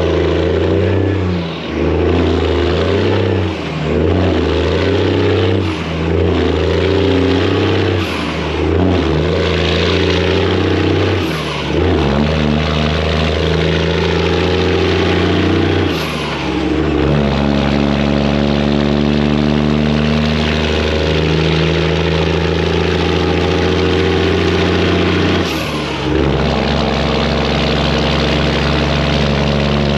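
Semi truck's Detroit diesel engine pulling up a hill under load, loud through its exhaust pipes. The sound dips briefly about seven times as gears are shifted, mostly in the first half, then holds a long steady pull.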